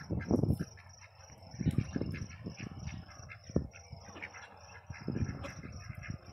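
Domestic ducks quacking in short, repeated calls, with several dull low rumbles in between.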